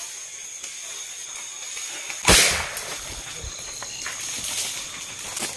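A single gunshot, a sharp crack with a short fading tail, about two seconds in, over a steady high whine of night insects.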